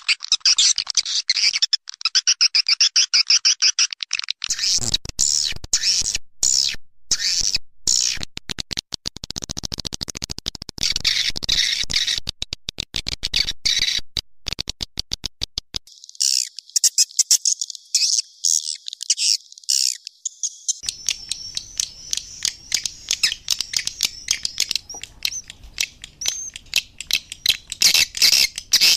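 Swiftlet lure call recording: dense, rapid, high-pitched twittering and stuttering chirp strings of edible-nest swiftlets, changing pattern every several seconds as call loops follow one another. It is the call sound used to draw swiftlets into a swiftlet nesting house.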